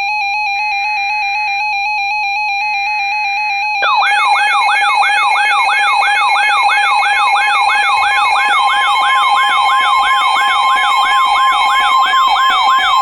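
Emergency Alert System alert tones starting a severe thunderstorm warning: a steady attention tone with faint data bursts every two seconds. From about four seconds in, a loud sweeping alarm tone repeating about twice a second joins it.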